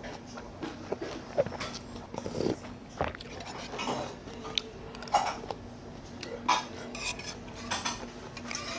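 Metal spoon clinking and scraping against a small stainless steel bowl, with slurping and chewing of soup and meat between the clinks.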